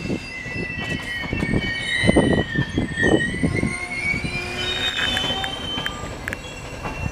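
Passenger coaches of a train hauled by a ČD Class 754 diesel locomotive rolling past as it arrives, their wheels squealing in several high, wavering tones over a low rumble and repeated thuds.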